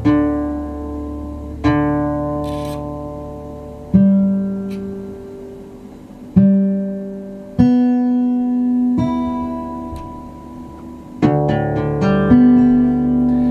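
Steel-string acoustic guitar with its strings plucked one at a time, each note left to ring and die away, as its Tronical auto-tune system retunes it to drop D. Near the end two fuller strummed chords.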